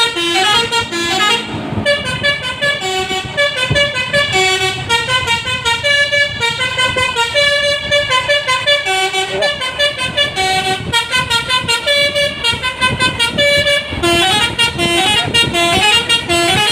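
A Basuri telolet multi-tone bus horn plays a tune of quick stepped notes, running through phrase after phrase without a break, with the bus engine rumbling underneath.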